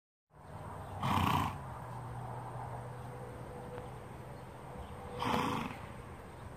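Horse snorting twice, two short breathy blows through the nostrils about a second in and again near the end, over a steady low hum.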